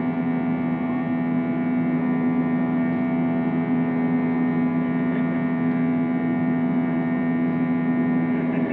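Steady drone of an Airbus A321's jet engines and airflow, heard from inside the passenger cabin during the climb after takeoff: an even, unchanging hum.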